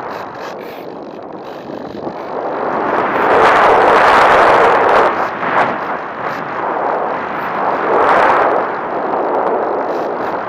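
Airflow rushing over the microphone of an onboard camera on a Bixler foam RC plane in flight. The rush swells loudest for a couple of seconds about three seconds in, and again briefly around eight seconds.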